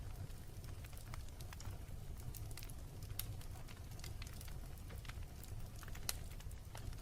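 Wood fire burning in a fireplace: irregular sharp crackles and pops, a few a second, over a low steady rumble, with the loudest pops about three and six seconds in.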